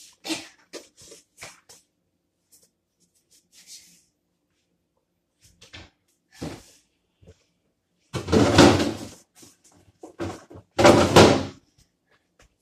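Refrigerator door being opened and swung: two loud clattering noises, each about a second long and a couple of seconds apart, after scattered lighter knocks and taps.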